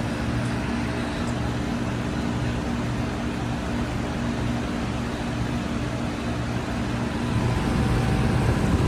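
Outdoor heat pump unit running: a steady low compressor hum under the even rush of the condenser fan, a little louder near the end.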